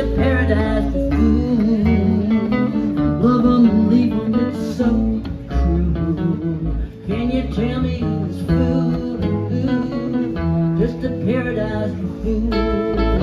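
Live country band playing: strummed acoustic guitar with an electric lead guitar and electric bass.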